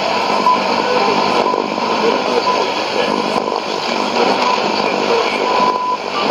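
Shortwave AM reception on 6160 kHz through a Sony ICF-2001D receiver's speaker: a steady hiss of static with a thin whistle running through it, which briefly grows stronger now and then.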